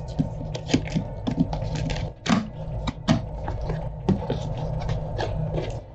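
Cardboard retail box of an Elgato WAVE:3 microphone being opened by hand: irregular taps, clicks and scraping as the flaps are lifted and pulled open.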